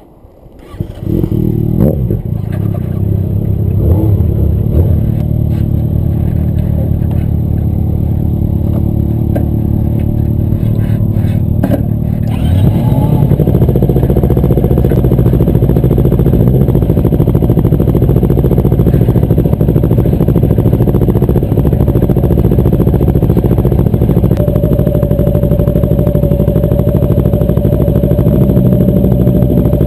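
Motorcycle engine starts about a second in and idles steadily. Around twelve seconds in the engine sound becomes louder and fuller, and keeps running steadily.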